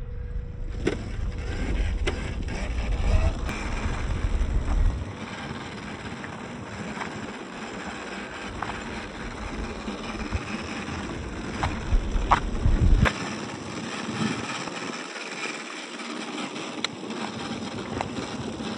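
FMS Rochobby Mashigan 1/10 scale RC crawler driving over gravel and loose rocks: tyres crunching, with scattered clicks of stones. Wind buffets the microphone during the first few seconds and again about twelve seconds in.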